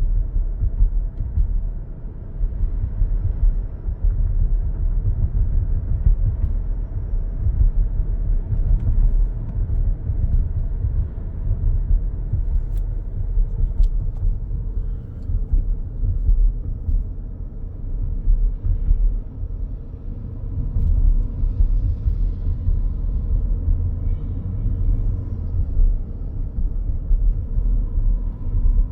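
Road rumble inside the cabin of a 2025 Toyota Grand Highlander Hybrid on the move, with a faint, steady high-pitched electrical whine above it that is clearer in the second half. The whine is the persistent fault noise the owner reports, worst under acceleration.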